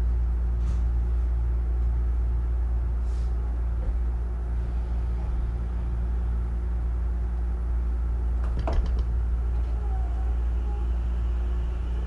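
Hankyu 9000 series electric train running, heard from inside the car: a steady low rumble of the running gear, with a brief clatter about two-thirds in and a faint tone from the Toshiba IGBT inverter drive near the end.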